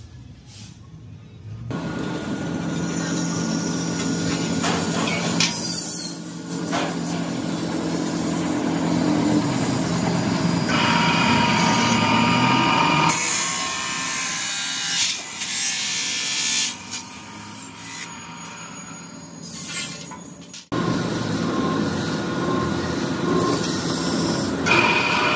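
Abrasive chop saw with a motor-driven cut-off disc, running and grinding through steel bar stock in several separate cuts. A steady motor hum alternates with harsher, brighter grinding noise.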